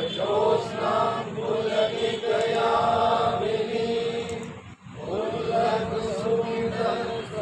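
A crowd of party workers chanting a political slogan in unison, in two long phrases with a short break a little past the middle.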